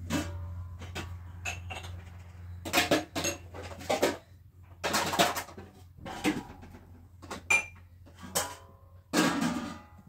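Metal pots, dishes and utensils clattering and clinking: about eight or nine separate knocks at irregular intervals, some with a short metallic ring after them.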